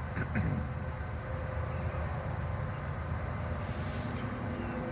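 Crickets chirring in a steady, continuous chorus over a steady low rumble.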